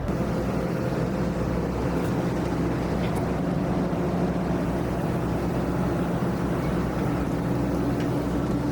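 Excavator engine running steadily while it digs, a constant low hum with a higher steady tone joining near the end.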